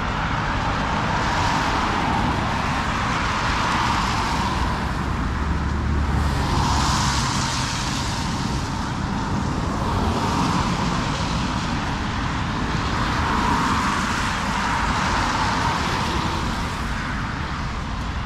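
Road traffic: cars passing one after another, their tyre and engine noise swelling and fading every few seconds over a steady traffic hum.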